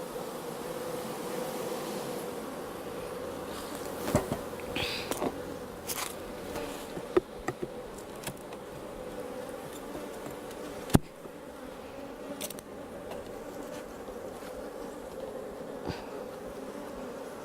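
Honeybees buzzing steadily in a large cloud around an opened hive, agitated by the disturbance. A few sharp clicks and knocks are scattered through it, the loudest about eleven seconds in.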